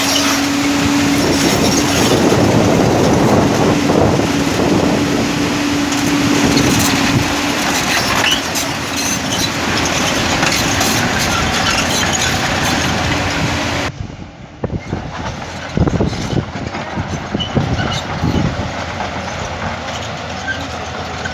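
Heavy construction machinery working: a loud, continuous mechanical racket with a steady hum, switching abruptly about two-thirds of the way through to a quieter stretch with scattered knocks and clanks.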